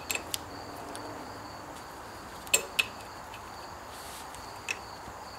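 A few sharp metallic clicks and taps as a hydraulic hose fitting is handled and tried on the port of a new bucket curl cylinder. The loudest are two clicks close together about two and a half seconds in. Insects chirp steadily in the background.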